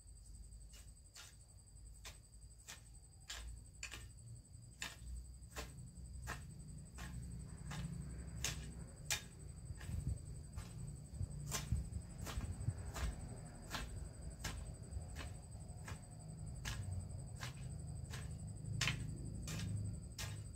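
Hoe working garden soil: light, sharp strikes repeat about twice a second, with a few louder ones, over a steady high-pitched whine.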